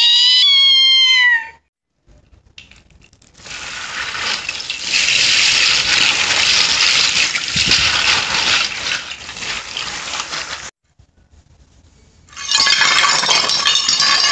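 A cat meows, a drawn-out call that rises and then falls, ending about a second and a half in. Then comes about seven seconds of even hissing noise, and near the end glass clinks and shatters in a rapid string of sharp cracks.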